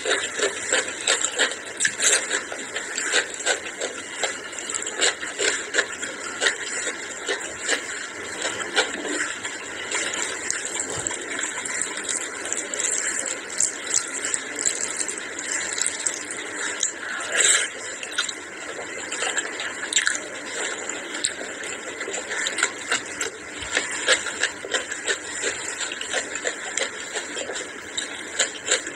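Close-miked wet squelching and squishing of rice and curry gravy being mixed and squeezed by hand, along with eating sounds. Many small clicks and smacks run throughout.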